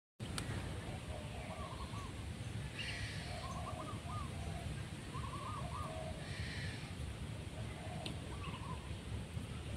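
Birds calling: one repeats short phrases of two or three quick notes about every second, and a higher buzzy call comes three times, a few seconds apart, over a steady low rumble.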